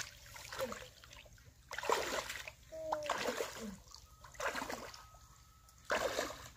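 Pond water splashing and sloshing as someone wades through shallow muddy water and dips a hand scoop net, in several separate splashes.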